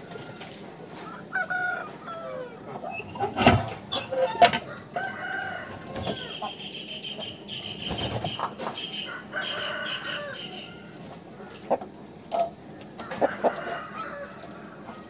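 Rooster crowing and chickens clucking: a string of calls, then one long crow held for several seconds from about six seconds in, and a few short clucks near the end. Two sharp knocks, the loudest sounds, come around four seconds in.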